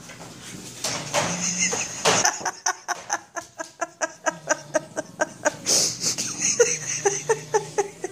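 A person laughing in quick rhythmic bursts, about four a second, with a brief break before a second run of laughter near the end.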